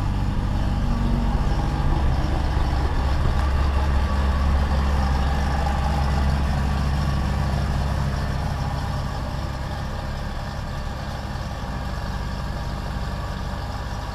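1993 Mazda RX-7 (FD) twin-turbo 13B rotary engine running as the car backs out past and moves away. It is loud at first and grows fainter from about halfway through.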